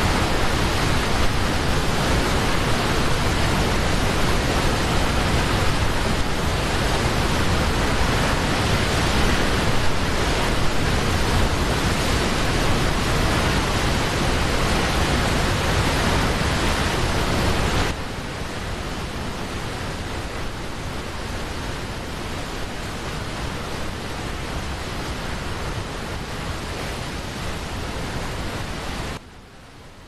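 Waterfall: a loud, steady rush of falling water with no pitch or rhythm. It drops a step in level about eighteen seconds in and falls quieter again just before the end.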